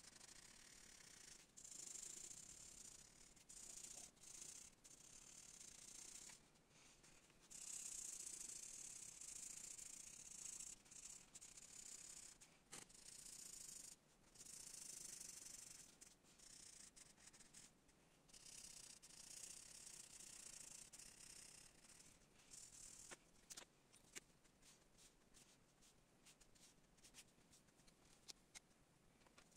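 Felt-tip marker scratching back and forth on paper in runs of quick colouring strokes, a faint hiss that comes and goes. In the last third it turns into short separate ticks as quick short lines are drawn.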